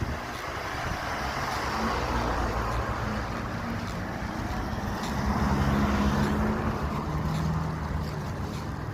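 Road traffic: motor vehicle engines running with tyre and road noise, swelling twice as vehicles pass.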